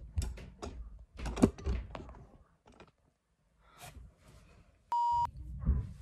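Handling noise from a phone or camera being adjusted up close: a run of knocks, clicks and rubbing thuds. About five seconds in comes a short, steady beep tone, the loudest sound, that blanks out the sound beneath it like an edited-in censor bleep.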